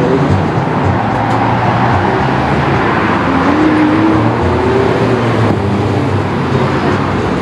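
Steady street traffic noise, with no gaps.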